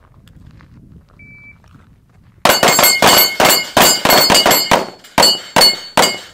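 A short electronic beep about a second in, likely a shot timer's start signal. About a second later a rapid string of pistol shots at steel plates follows, each shot with the ring of a struck steel target. The shots thin out to a few spaced ones near the end.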